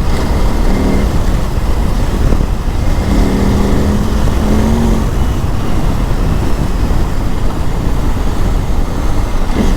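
KTM 950 Adventure S's LC8 V-twin engine running under way on the motorcycle. Its pitched note stands out around a second in and again from about three to five seconds in, over a steady, dense low rumble of riding noise.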